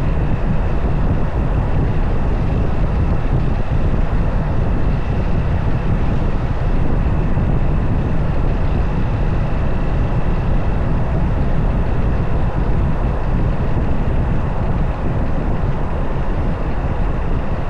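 A motorcycle being ridden: the engine runs steadily under a constant rush of wind on the camera's microphone.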